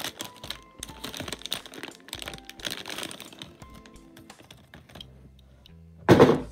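Plastic blind-pack packaging crinkling and a die-cast toy car being handled, a quick run of small clicks and rustles, over background music. A loud thump about six seconds in.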